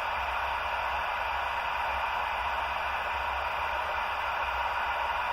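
CB radio receiver putting out steady static hiss between transmissions, with a faint low hum underneath.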